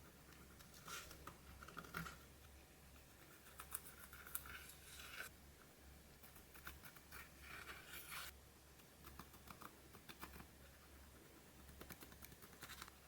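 Pressed eyeshadow being scratched out of a palette pan: short groups of quiet scraping strokes with pauses between them, over a faint steady low hum.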